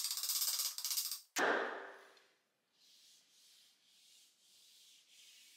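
A hatchet blade scrapes along a wooden bow stave, taking off a paper-thin peel, and the rasping stops about a second in. A single sharp knock follows as the hatchet is driven into a wooden chopping stump. After that there is only faint handling noise.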